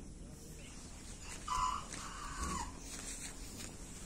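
A chicken calling: two notes about a second and a half in, the second longer and falling in pitch at its end, over faint rustling of a bird being handled.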